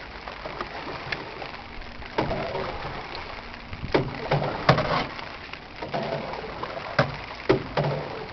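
Small boat moving through floodwater: sloshing water with irregular splashes and knocks from strokes in the water, roughly a second apart.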